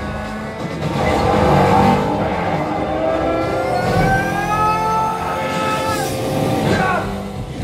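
Demo-disc soundtrack playing through home-theater speakers: car engine sound effects whose pitch glides up and down and falls away near the end, with heavy low bass.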